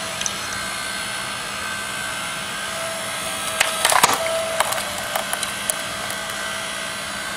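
8-ton electric hydraulic log splitter running with a steady motor hum as its wedge drives into a thick log. The wood cracks and splinters in a burst of sharp cracks about halfway through, the log splitting off-centre along its weaker side.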